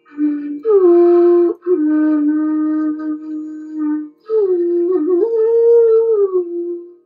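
Background music: a slow flute melody of long held notes that slide between pitches, in short phrases with brief breaks, over a faint steady drone.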